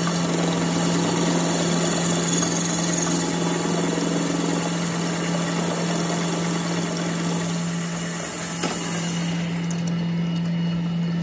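Metal lathe running, its cutting tool turning a spinning metal plate: a steady motor hum under a dense cutting hiss. A knock comes about two thirds of the way in, and near the end the cutting hiss stops, leaving the hum and a few clicks.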